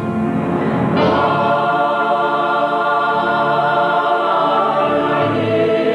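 A choir singing long held chords with accompaniment, coming in about a second in as the music cuts from a solo song.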